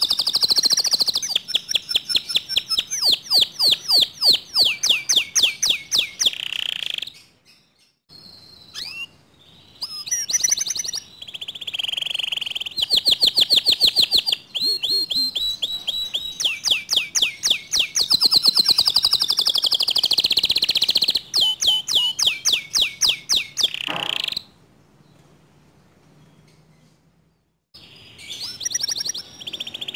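Domestic canary singing long runs of fast rolling trills, the notes repeated many times a second, with a short break about seven seconds in and a pause of about three seconds near the end.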